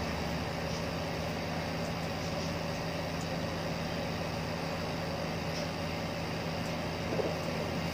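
Steady low mechanical hum of a running motor, with a few faint light clicks as a wire pigeon cage is handled.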